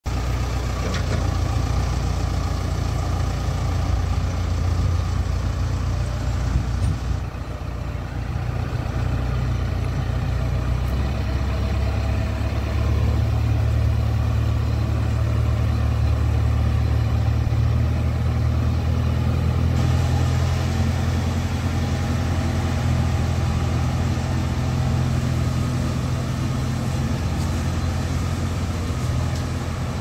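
JCB 3DX backhoe loader's four-cylinder diesel engine running steadily while the machine handles a load of hollow concrete blocks in a gripper attachment. The engine runs a little higher and louder from about twelve seconds in.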